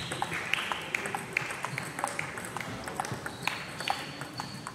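Table tennis balls clicking on tables and bats, about four light taps a second at an irregular pace, in an echoing sports hall.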